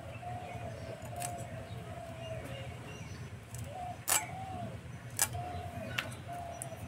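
Hilsa scales being scraped off against the edge of a boti, the fixed curved Bengali kitchen blade: a few short, sharp scrapes, the loudest about four seconds in. A dove coos over and over in the background.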